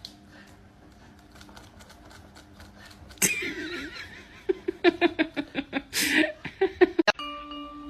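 A person laughing in a run of short, quick bursts, after a quieter stretch with faint clicks.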